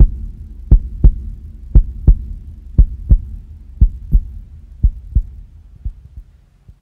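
Heartbeat sound effect: double lub-dub thumps about once a second over a low hum, fading out gradually toward the end.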